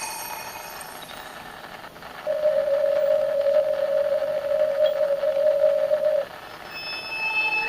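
A single steady tone, held for about four seconds and then cutting off suddenly, over a faint hiss; other tones begin to come in near the end.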